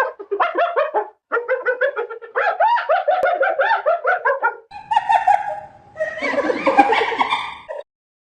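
A rapid series of short, high, rising-and-falling animal calls, several a second, for most of the first half; then the recording cuts to two shorter, harsher animal-call clips, which stop abruptly near the end.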